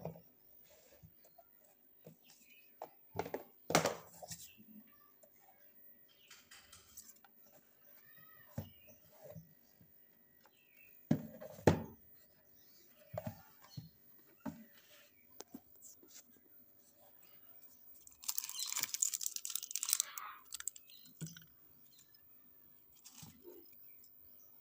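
Intermittent handling noises: scattered knocks and clicks, the loudest a pair about 11 to 12 seconds in, and about two seconds of rustling near 18 to 20 seconds, from a laser pointer and its packaging being handled.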